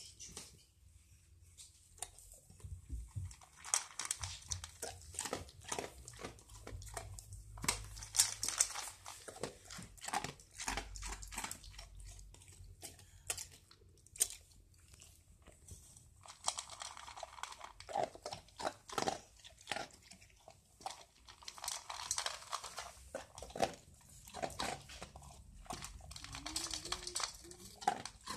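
Old English sheepdog eating dry kibble from a stainless steel bowl: irregular crunching and clicking bites, with short pauses between mouthfuls.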